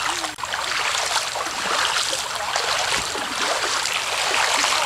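Ankle-deep, sandy stream water running steadily, with splashing of bare feet wading through it.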